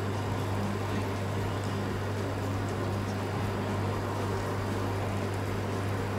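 Slotted spatula lifting and turning cooked rice in a nonstick pan, with a few faint scrapes and soft ticks, over a steady low background hum.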